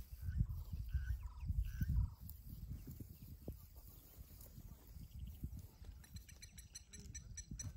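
Waterhole ambience: wind noise on the microphone, strongest in the first two seconds, with birds giving short calls over it. From about six seconds in, a rapid high-pitched chirping joins.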